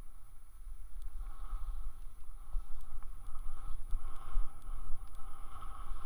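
Skis sliding over snow with a steady hiss that grows stronger about a second in, over a low rumble of wind on the microphone.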